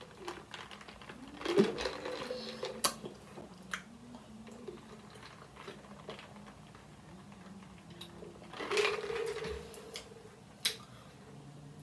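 Someone drinking from the spout of a plastic drink bottle: faint sips and swallows with a few sharp plastic clicks, and a short voiced sound a little after two-thirds through.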